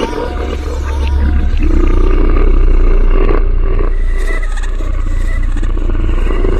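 Horror sound effect: a deep, growling roar over a steady low rumbling drone, swelling to its loudest in the middle.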